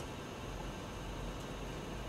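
Room tone: a steady low hiss with a faint low hum, with no speech.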